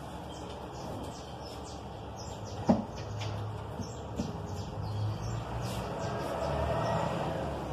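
Small birds chirping in quick short notes, with a single sharp knock about two and a half seconds in and a low rumble swelling near the end.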